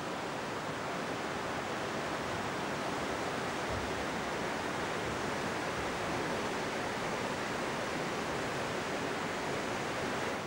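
Steady rushing of a mountain stream, an even unbroken wash of water noise.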